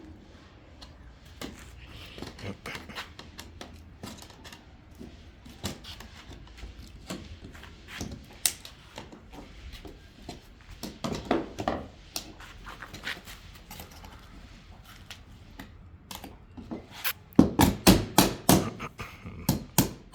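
Scattered knocks and taps on a wooden shipping crate as it is worked open, ending in a quick run of loud knocks, about five a second, near the end.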